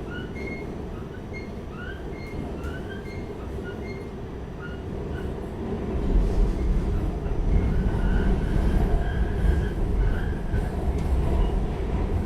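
R46 subway car running on the rails, heard from inside: a steady rumble of wheels and track with short high wheel squeals and chirps. The rumble grows louder about six seconds in, and longer squeals follow.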